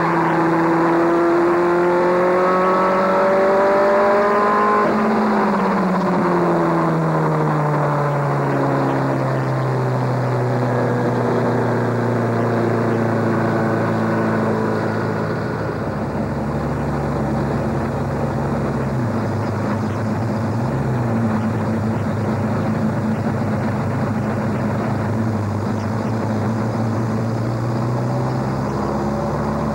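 Race truck's engine heard from inside the cab at racing speed: the revs climb for about five seconds, drop sharply and fall away over the next few seconds, then hold lower and fairly steady, with a brief dip about twenty seconds in.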